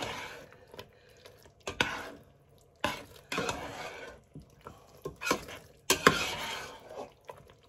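Metal spoon stirring thick apple pie filling in a Teflon-coated pot, scraping the bottom of the pan in a series of strokes with sharp clicks of spoon against pot.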